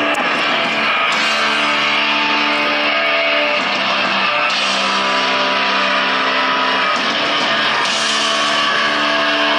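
Rock music with electric guitar: sustained chords that change every second or two.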